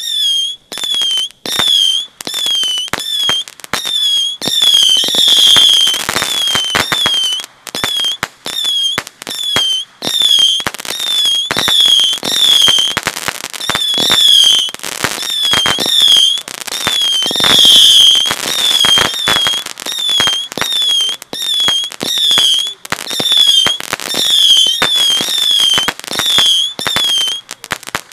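A 100-shot crackling saturn missile firework battery firing a rapid string of whistling shots, one after another, about one and a half to two a second, with crackling pops all through. Each whistle is short and dips in pitch.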